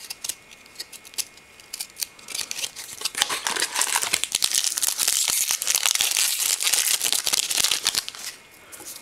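A few light clicks of trading cards being handled, then a shiny foil card-pack wrapper being torn open and crinkled in the hands, a dense crackle from about two and a half to eight seconds in.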